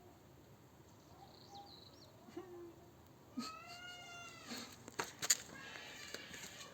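A cat meowing: one drawn-out meow that rises and falls in pitch, about three and a half seconds in. A few sharp clicks follow around five seconds in.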